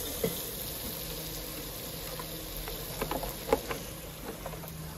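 Tomatoes and spices frying and sizzling in a steel cooking pot, with a few light clicks a little after the midpoint.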